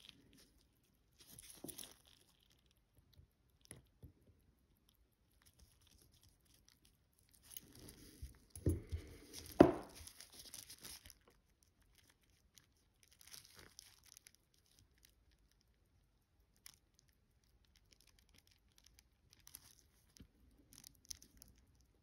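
Faint handling noises at a watchmaker's bench: soft rustles and small clicks of tools and watch parts being handled. A louder stretch of rustling comes about eight seconds in, with one sharp tap near ten seconds.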